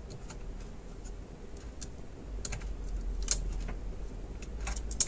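Irregular light clicks and taps of a Dell Inspiron N5110 laptop's copper heatsink-and-fan assembly being seated back onto the motherboard by hand.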